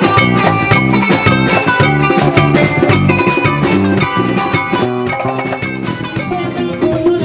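Live band playing an upbeat groove: plucked guitar lines over a drum kit with a steady beat.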